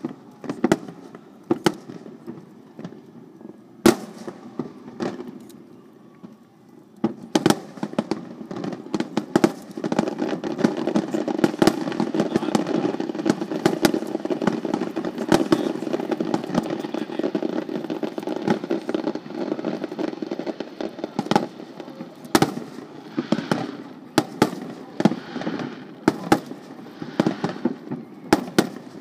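Aerial firework shells bursting in a display: scattered sharp bangs at first, then from about ten seconds in a dense, nearly continuous barrage of bangs, thinning out again near the end.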